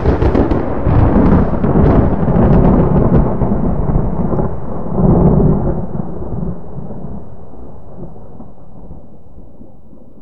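Close lightning strike and thunder: a sharp crackling crack gives way to a deep rolling rumble that swells again about five seconds in, then slowly dies away.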